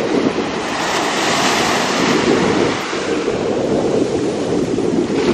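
Wind buffeting the microphone over the rush of surf: a steady, loud rushing noise with no distinct beats or tones.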